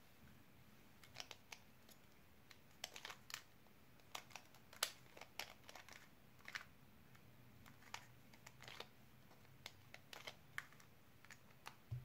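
Plastic 2x2x1 puzzle cube being turned by hand: an irregular scatter of light, sharp clicks as its layers snap round. A soft low thump near the end as a hand comes down on the tablet screen.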